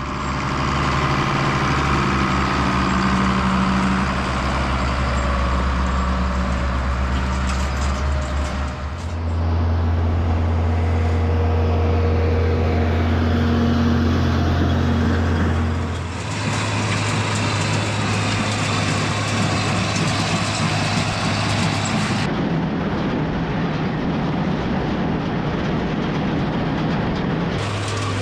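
Tractor engines running steadily across several cut-together clips. The engine note changes abruptly at each cut, roughly every six to seven seconds.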